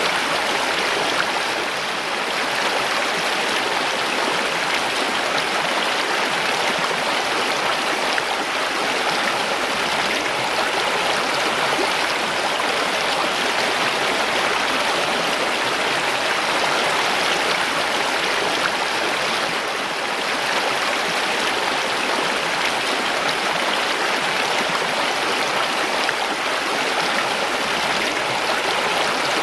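Mountain stream rushing and gurgling over rocks, a steady even flow of water.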